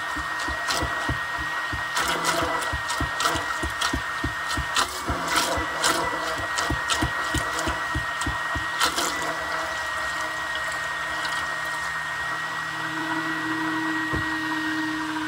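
Hand-held immersion blender running in a bowl, emulsifying oil into an orange-juice and garlic marinade: a steady high motor whine over rapid knocking and clicking from the blade head. The knocking dies away about two-thirds of the way through, and a lower steady hum comes in near the end.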